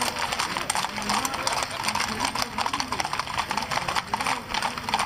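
Hooves of many horses clip-clopping in a dense, irregular clatter of strikes.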